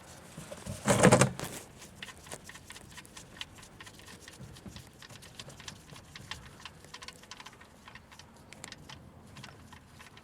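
Oil drain plug being worked loose and unthreaded by hand under a car: light, scattered, irregular clicks and ticks, after a short loud knock about a second in.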